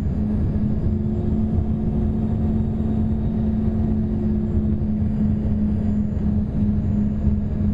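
Cabin noise inside an Embraer ERJ-145 regional jet on final approach with flaps extended: the steady rumble of its rear-mounted Rolls-Royce AE 3007 turbofans and rushing air, with a steady droning hum. A second, higher tone joins about a second in and fades a few seconds later.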